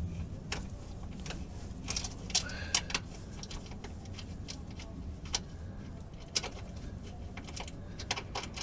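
Irregular light metallic clicks and clinks of a hand tool loosening a 10 mm ground bolt in the car's engine bay.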